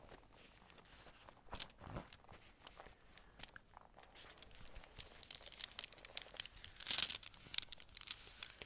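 Close-up crinkling and rustling handling noises with scattered small clicks, the loudest crinkle about seven seconds in.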